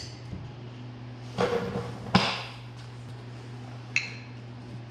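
Metal brake parts knocking and clinking together as a rear brake caliper and new brake pads are handled: a short rattle about a second and a half in, a sharp click just after two seconds, and a ringing metallic tink about four seconds in.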